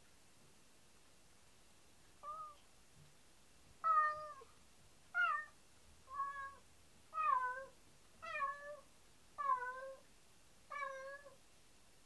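Domestic cat meowing over and over, short calls about once a second, the first one softer. These are the sad, lonely cries the cat gives when its owners leave the room, which the owners suspect come from separation anxiety.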